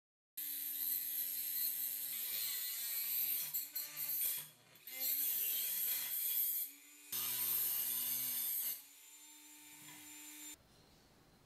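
Handheld rotary tool with an abrasive cut-off wheel grinding through the metal at the hinge of a cast-iron charcoal iron's lid. It starts suddenly: a steady motor whine under a harsh grinding hiss, in three loud stretches with brief pauses, the pitch wavering as the wheel bites. Near the end the motor runs on more quietly, then stops.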